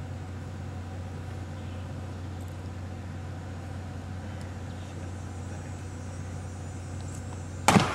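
A steady low hum and rumble of background noise, with a sudden loud thump near the end.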